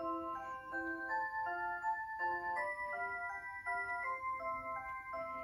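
Rhythm WSM Nice Classic musical clock playing one of its Christmas melodies: a steady run of clear, pitched notes, about two to three a second.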